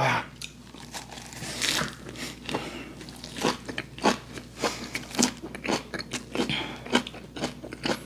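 A man bites into a lettuce wrap of yellowtail sashimi and chews it close to a clip-on microphone: wet crunching of the leaves, several irregular crunches a second.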